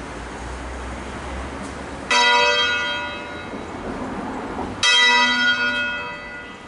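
Church bells from a ring of six cast by Crespi of Crema in 1885, two strokes about two and a half seconds apart, each ringing on and dying away. They are sounding a slow funeral peal (concerto funebre).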